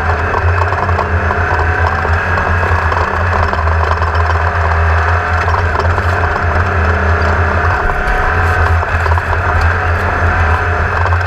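An engine running steadily at a constant speed, a deep continuous drone with a rough rattling noise over it.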